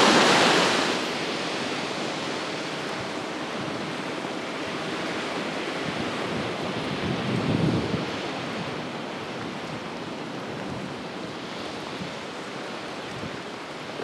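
Black Sea surf washing onto a sandy beach as a steady rushing wash, swelling louder at the start and again about halfway through, with wind buffeting the microphone.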